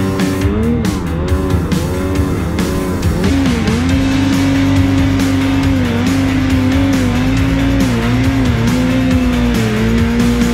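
Snowmobile engine revving hard in deep snow, its pitch swinging up and down with the throttle. About three seconds in it settles to a higher, steadier pitch with short repeated dips.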